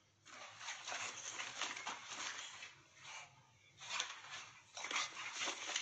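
A dog making noisy, breathy sounds in irregular bursts: one long spell, then several shorter ones.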